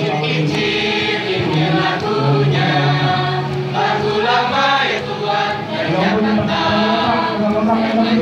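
School choir of many voices singing an Indonesian folk song together, held notes changing pitch every second or so.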